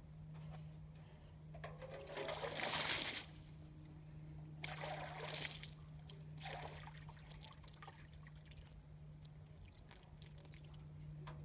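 Water being poured out in three short spells, the first, about two seconds in, the loudest.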